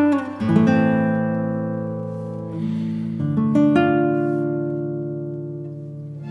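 Background music: acoustic guitar chords, each struck and left to ring out slowly.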